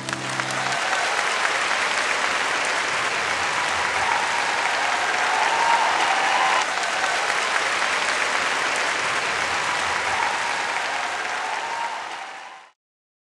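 Concert audience applauding steadily as the last note of the music dies away, then cutting off abruptly near the end.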